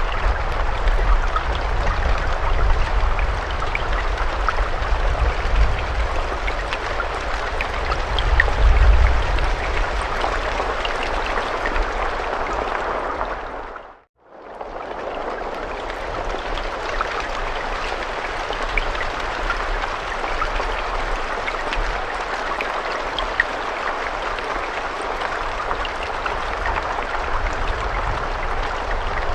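Steady rain with a scattering of small drop ticks and a low rumble underneath in the first half. About halfway through it fades out to silence for a moment and fades straight back in, like a seam where the recording loops.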